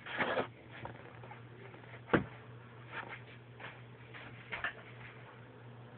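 Small plastic toys being handled: a short rustle at the start, one sharp click about two seconds in, then a few faint taps, over a steady low hum.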